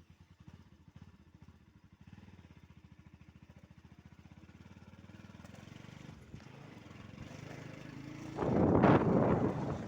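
Motorcycle engine running as the bike gets under way, its even firing pulses growing gradually louder. A loud rush of noise comes in near the end.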